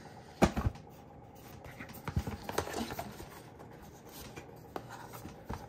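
A cardboard phone box being handled: one sharp tap about half a second in, then light scraping and small taps as it is turned over and its sealing tape is picked at.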